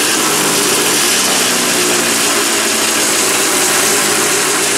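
Vintage snowmobile engine idling steadily nearby, a continuous even running sound with no revving.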